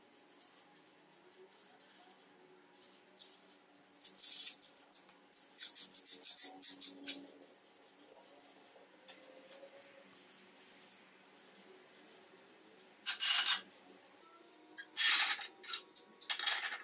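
Steel parts of a homemade threaded-rod clamp clinking and rattling as it is handled and adjusted. The metallic clicks come in short flurries, about four seconds in and again near the end.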